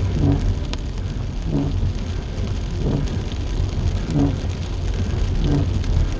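Windshield wipers sweeping across a rain-wet windshield, a stroke about every second and a quarter, heard inside the car's cabin over a steady rumble of road and engine and the hiss of rain.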